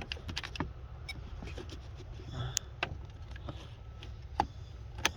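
Scattered light clicks and taps of test leads and a wiring connector being handled and positioned, over a steady low rumble.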